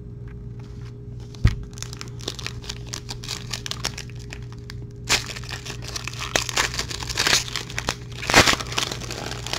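Foil trading-card pack being torn open and crinkled by hand: a dense run of sharp crackles, with louder tears about five and eight seconds in. There is a single knock about a second and a half in.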